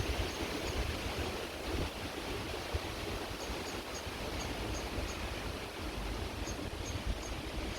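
Creek water running steadily, with wind buffeting the microphone in a low, uneven rumble. Faint high chirps come in two short runs, a few a second, about halfway through and again near the end.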